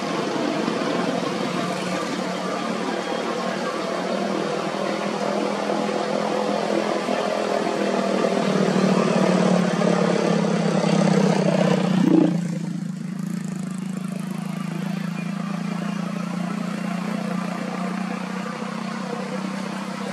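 Motor vehicle engine noise that builds steadily to a peak about twelve seconds in, then drops suddenly to a lower, steadier hum.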